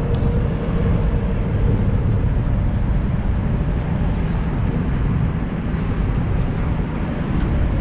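Steady low rumble of city traffic, with no distinct events standing out.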